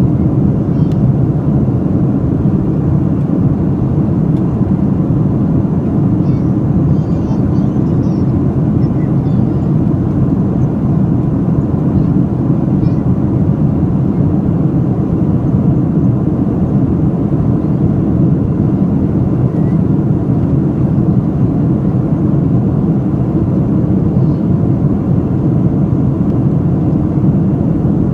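Steady low roar of an aircraft, level and unchanging.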